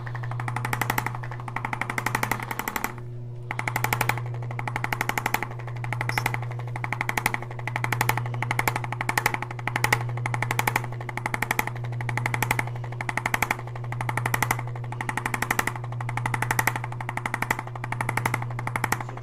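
Handheld chiropractic percussion instrument tapping rapidly and continuously, its strokes swelling in surges about once a second over a steady low motor hum.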